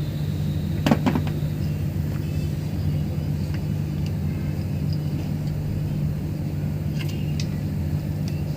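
Steady low hum of an idling engine, with a few sharp clicks about a second in and two more near the end.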